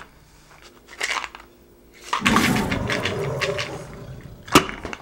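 Pills rattling in a plastic pill bottle as it is shaken and tipped up for a couple of seconds, with a short scrape of handling about a second in and one sharp click near the end.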